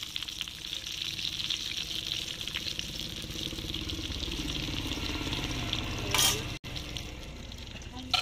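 Raw banana slices deep-frying in hot oil in an iron wok: a steady sizzle with fine crackling as the slices are turned with a slotted steel spoon. A brief louder noise comes about six seconds in, and a short sharp click near the end.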